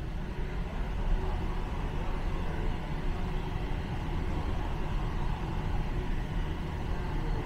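Airport moving walkway running, a steady low rumble without breaks.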